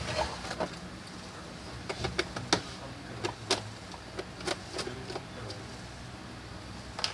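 Irregular light clicks and taps of a screwdriver and small screws being handled on a laptop's plastic case, over a low steady hum.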